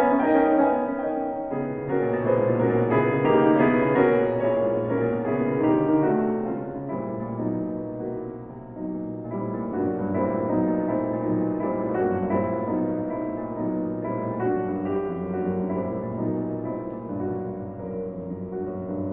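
Solo piano music playing a slow, melodic classical-style piece, its notes changing about once a second.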